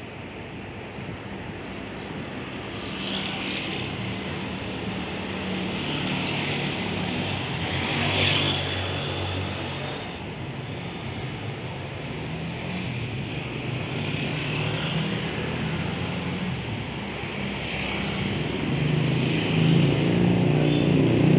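Automatic sliding steel gate closing: its electric gate motor runs steadily as the gate rolls along its ground track, with brief higher-pitched scrapes a few times. It grows louder near the end as the gate nears the closed position.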